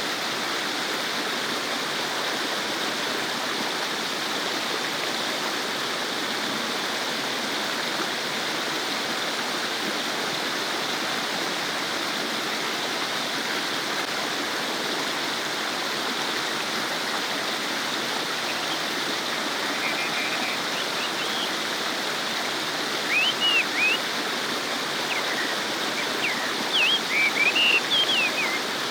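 A babbling stream flowing steadily over rocks, with a few short high chirps in the last third.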